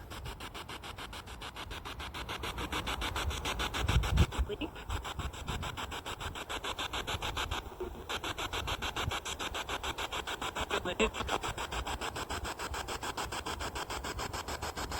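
Spirit box sweeping through radio stations: a rapid, even chopping of radio static.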